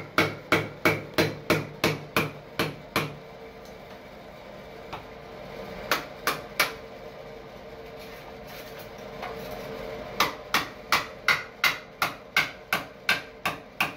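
Hammer tapping a chisel to chip old mortar off a concrete shower floor: quick, even strikes about three a second, a pause broken by two single strikes, then another quick run of strikes.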